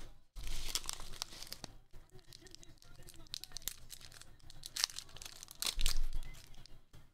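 Crinkling and rustling of a padded bubble mailer and the clear plastic holders around a stack of trading cards as they are handled, in uneven bursts, loudest about half a second in and again near six seconds in.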